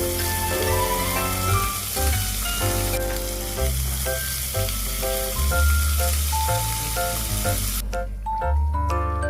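Hot food sizzling in oil, a steady hiss that cuts off suddenly near the end, under background music with a bass line and melody.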